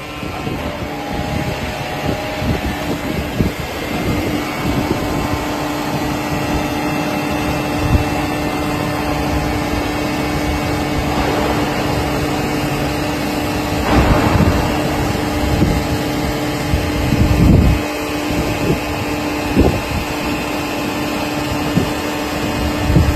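Hydraulic metal baler running: a steady machine hum with a constant tone, broken by several loud metallic knocks and bangs, the loudest about 14 and 17 seconds in.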